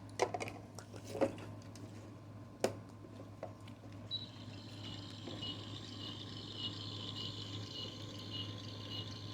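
Plastic clicks as a toy microwave is shut and started. About four seconds in, its electronic cooking sound begins: a steady high tone with an even, repeating pulse.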